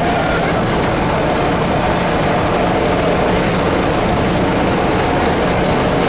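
Steady rumble of vehicle engines in slow street traffic, with no siren sounding.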